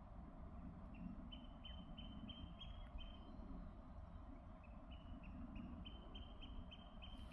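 Eurasian oystercatcher calling: two runs of quick, faint, high piping notes, about four a second, each run edging up in pitch, with a short pause between them.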